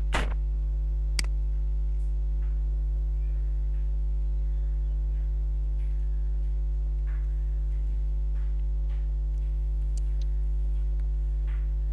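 Steady electrical mains hum on the recording, with a few faint keyboard clicks as code is typed.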